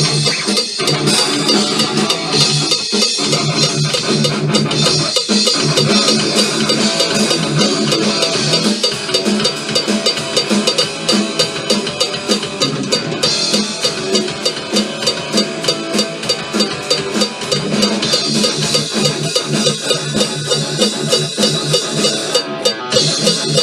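Fast rock music: a drum kit played hard with cymbals and a steady driving beat over electric guitar, recorded as a drum take.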